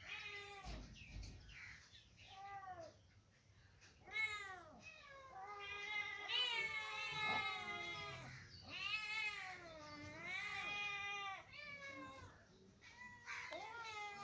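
Kittens meowing over and over in high, arching calls. Some calls are short; others are long and drawn out, and around the middle several overlap as two kittens call at once.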